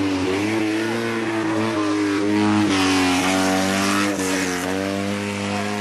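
Small race car's engine revving hard up the hill, its pitch climbing and dropping back at each gear change, loudest as the car passes close about halfway through.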